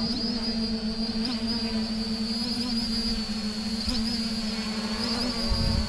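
Holybro X500 v2 quadcopter in flight: steady propeller hum with a high motor whine, its pitch briefly wavering several times as autotune twitches the pitch axis. A low rumble comes in near the end.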